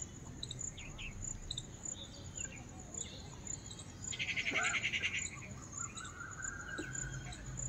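Outdoor park ambience: insects chirring in a high, evenly pulsing rhythm, with scattered bird chirps. A louder rapid chattering trill comes about four seconds in, and a short held whistle-like note near the end.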